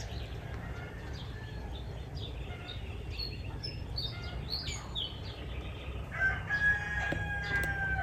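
A rooster crows once near the end, a long held call that drops in pitch as it closes. Small birds chirp throughout.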